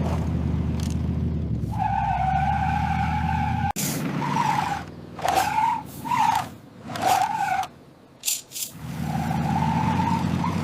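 A motor whining over a low rumble, steady at first and cut off suddenly, then in several short bursts that rise and fall in pitch like throttle blips, and steady again near the end.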